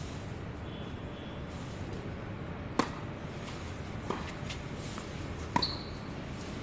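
Tennis balls being struck by rackets during a doubles rally: a sharp pock about three seconds in, another near the end, and fainter ball bounces between. A brief high squeak follows the last hit.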